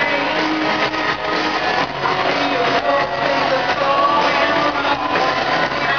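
Live rock band playing loud, heard from the crowd: a woman sings over electric guitars.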